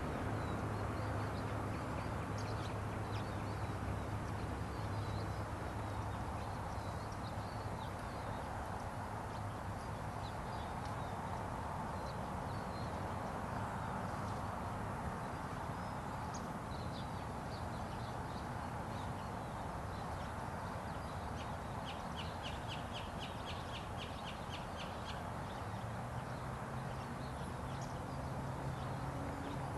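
Scattered short, high bird calls over a steady low hum and rumble, with a rapid run of about a dozen quick notes about two-thirds of the way through.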